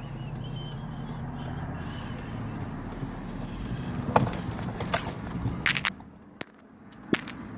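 Chevy Tahoe being driven, heard from inside the cabin: a steady low engine hum, with a few sharp knocks and clatters in the second half and a brief drop in the engine noise near the end.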